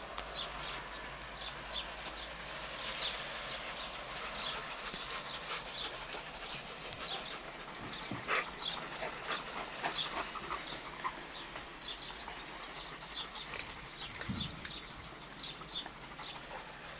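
A dog making sounds over a steady hiss, with many short clicks and scuffs scattered throughout.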